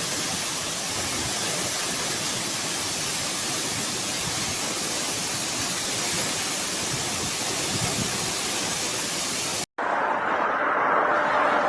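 Heavy rain pouring down in a steady hiss. Near the end it cuts off abruptly and a different rushing noise begins.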